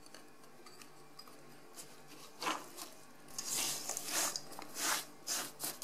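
Spatula stirring almonds, seeds and coconut through melted coconut oil in a stainless steel bowl. Irregular scraping and rustling strokes start about two and a half seconds in.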